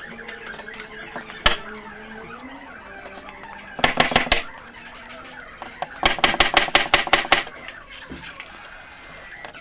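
Hammer blows on car body sheet metal, as in panel beating: a single strike, then a short run of quick blows, then a longer run of about a dozen rapid blows.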